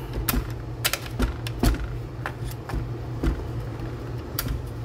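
A strip of 1-inch nails being loaded into a nail gun's magazine: a series of irregular sharp metal clicks and light rattles.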